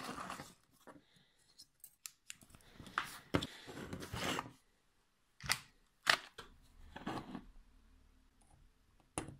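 A scatter of short plastic clicks and scrapes from handling cables: a PS/2 mouse plug being fitted into its socket and jumper wires being pushed into an Arduino Uno's header pins.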